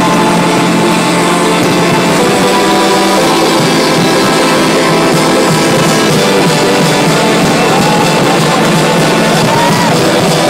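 Loud rock-style music with guitar and drums, the soundtrack accompanying a fireworks display, heard steadily with no breaks.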